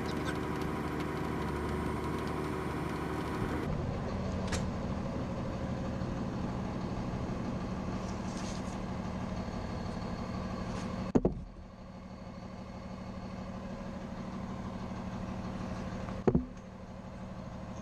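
Steady low mechanical drone, like an engine running, broken by two sharp knocks about eleven and sixteen seconds in.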